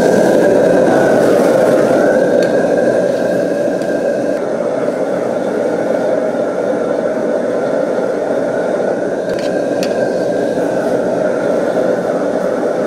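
Commercial gas wok burner at full flame, a steady rushing noise with a faint steady whine above it, under a wok of stir-frying noodles. A couple of sharp clinks of the steel ladle on the wok about nine and ten seconds in.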